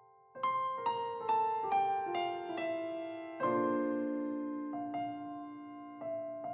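Soft piano background music: a run of single notes stepping downward, then held chords.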